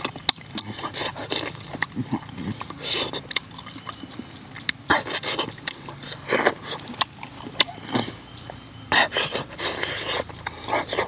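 Close-up eating sounds: wet chewing and lip smacking with irregular clicks as cooked eel is pulled apart by hand and eaten. A steady high insect drone runs behind it.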